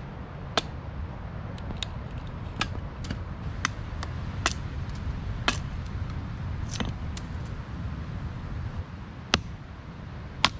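Hatchet splitting a stick of firewood into kindling on a wooden post: about eleven sharp wooden knocks at irregular intervals, roughly one a second, as the blade is driven into and down through the wood. A steady low rumble runs underneath.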